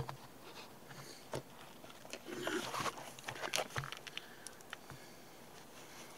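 A sharp knock right at the beginning, then a blue shop rag rustling and rubbing as a magnetic transmission drain plug is wiped clean, with scattered small clicks from handling it.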